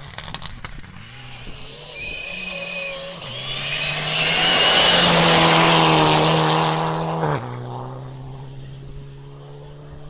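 Mitsubishi Lancer Evo IX rally car's turbocharged 2.0-litre four-cylinder at full throttle, climbing through the gears as it nears and loudest as it passes at speed about five seconds in, with a hiss of tyres and thrown gravel. About seven seconds in the engine note drops suddenly and holds lower and steadier.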